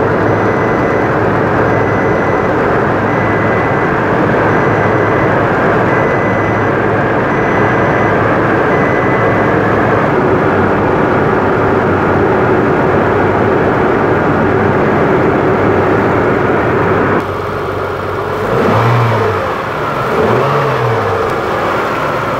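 Isuzu 3.2-litre petrol V6 running steadily just after a jump start from a small lithium booster, with a regular high beep about once a second during the first ten seconds. Near the end the sound changes and swells up and down twice.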